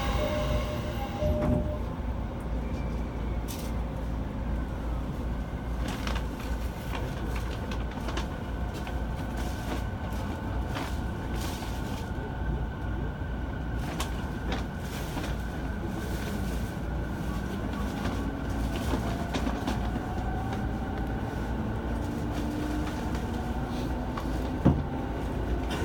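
Running noise heard inside a JR E217-series commuter train car: a steady rumble of the wheels on the rails, with a faint rising whine past the middle and a single sharp knock near the end.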